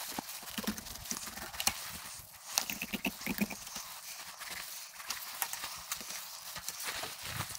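Irregular sharp clicks and knocks of a knife working against a cutting board as a whitefish is filleted.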